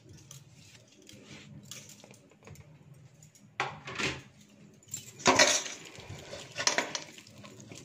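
Glass and metal bangles jingling as a hand mashes boiled potatoes in a stainless steel bowl, with clinks and scrapes against the bowl. It comes in short bursts from about halfway in, the loudest a little past the middle.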